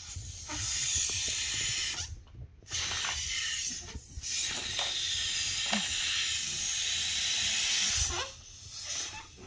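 Air hissing out of the neck of an inflated balloon as it is let down. The hiss breaks off briefly about two seconds in, resumes, and stops about eight seconds in as the balloon empties.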